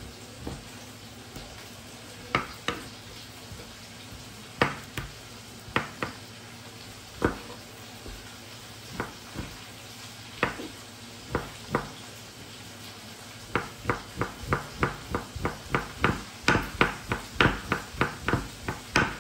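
Chef's knife slicing raw beef and striking a plastic cutting board: separate cuts every second or so, then from about two-thirds of the way through a quick, steady run of chops, about three a second.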